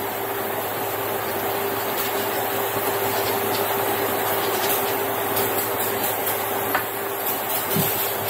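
Aerosol avocado oil cooking spray hissing in a long, steady spray.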